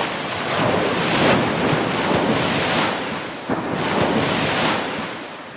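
Ocean surf: waves washing in with a steady, swelling rush of noise, fading away near the end.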